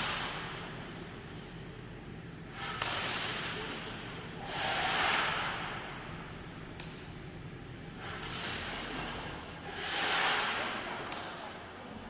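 Air shower cabin running: high-velocity air jets blowing with a hiss that swells and fades several times, over a steady low fan hum. A single sharp click about three seconds in.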